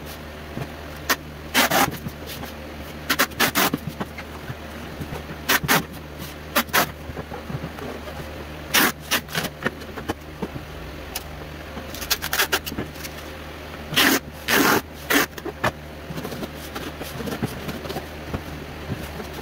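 Packing tape ripping off a handheld tape gun and roll in short bursts every second or two as cardboard boxes are taped together, over a steady low hum.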